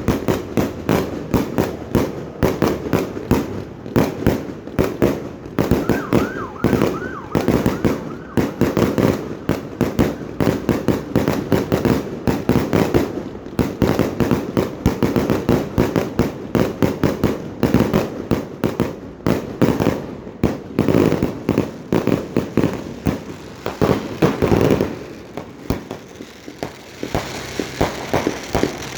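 Fireworks going off in a rapid, continuous barrage of bangs and crackles, with a few short rising whistles about six seconds in. The barrage thins out near the end.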